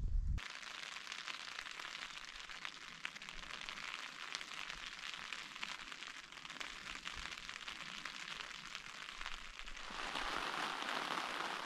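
Rain falling on a Naturehike Mongar 2 tent, heard from inside: a steady hiss of many fine drops, growing louder and heavier about ten seconds in.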